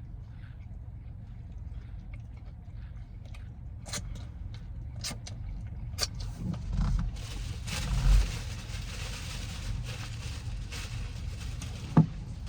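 A person eating a chicken wrap: chewing, with a few sharp clicks and two soft thumps, over a steady low hum, and a short sharp click near the end.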